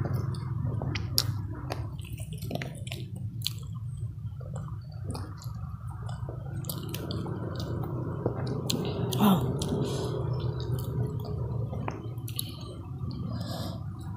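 Close-miked chewing and wet mouth sounds of someone eating grilled fish and rice by hand, with scattered smacks and clicks over a steady low hum.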